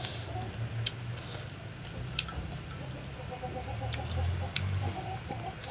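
Close-up eating sounds: wet chewing and mouth clicks while fingers mix rice on a steel plate, with a few sharp clicks scattered through and a steady low hum beneath.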